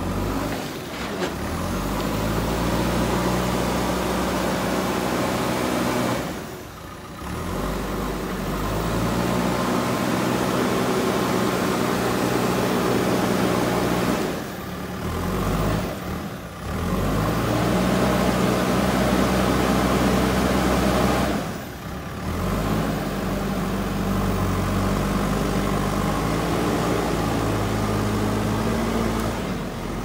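JCB 3DX backhoe loader's diesel engine running under load, its pitch rising and falling as the machine drives and works the front bucket. The sound dips briefly three times.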